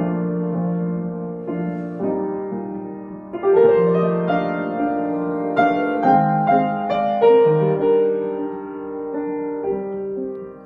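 Slow solo piano music: held chords and single notes that change every second or so, growing louder in the middle.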